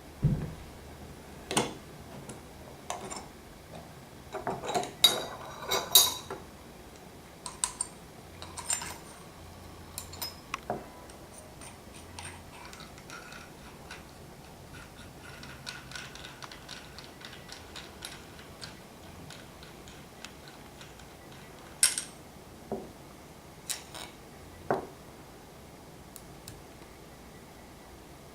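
Metal tool parts and bearings being handled during a bottom-bracket bearing job: scattered metallic clicks and clinks, a busy cluster about five seconds in, then sparse ticks and a few sharp clicks near the end.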